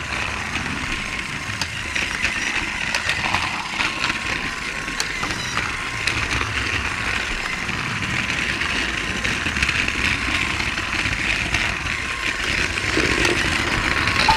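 Small electric motor of a battery-powered toy train whirring steadily as it rolls along with its wheels rumbling, with a few light clicks.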